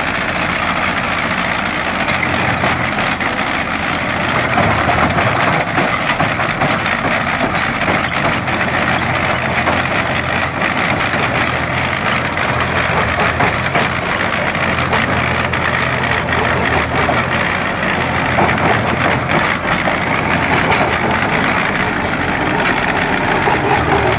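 Tractor's diesel engine running steadily under load, powering a chain trencher whose digging chain churns through the soil as it cuts a trench.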